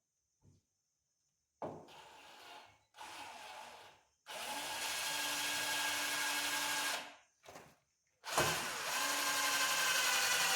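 Power drill boring mounting holes into the pickup's sheet-metal body for a side mirror, in several runs. There are two short bursts, then a steady run of about three seconds, a brief blip, and a loud run that starts near the end and keeps going.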